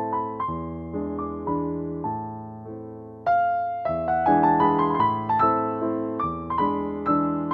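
Background piano music: a gentle melody of single struck notes that fades a little, then comes back louder just after three seconds.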